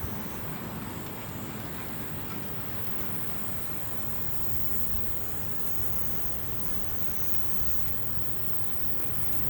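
Steady outdoor ambience: a high, thin insect chorus that fades and returns, over an even low rush.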